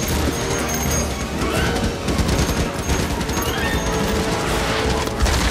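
Several Morita assault rifles firing rapid automatic bursts together: a film's gunfire effects, dense and continuous, heard over the film's music score.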